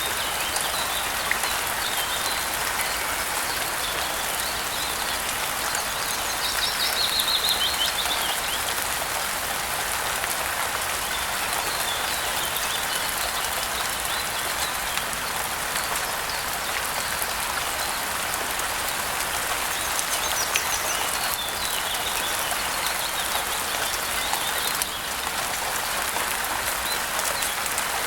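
Steady rain falling, with birds chirping now and then above it, a louder trill about seven seconds in.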